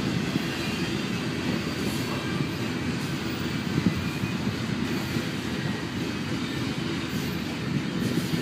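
Double-stack container train's well cars rolling past: a steady rumble of steel wheels on the rails, with a few louder clanks.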